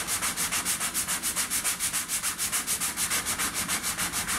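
Handheld sanding block scrubbing back and forth over dried spackling paste in quick, even strokes, about six a second.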